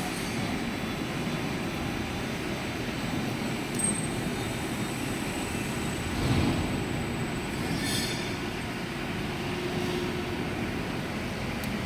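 Centre lathe running while machining a flange tailpiece: a steady mechanical rumble with a faint, thin high whine. Short sharper sounds come about 4 s in and again near 8 s.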